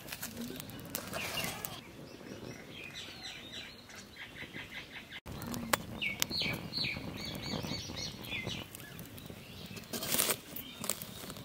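Small fire of dry twigs crackling and popping, with birds chirping in quick, evenly spaced runs. About ten seconds in comes a louder, denser burst of noise as a whole watermelon is set down onto the burning twigs.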